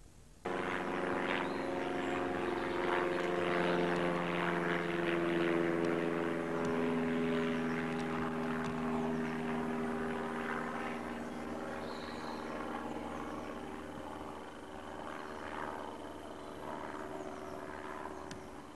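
Propeller aircraft engines droning overhead. The sound starts suddenly and holds steady with several slowly shifting pitches, then gradually fades.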